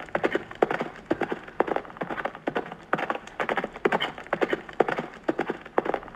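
Horse hooves clip-clopping: a steady run of quick, sharp hoof strikes, several a second in an uneven rhythm.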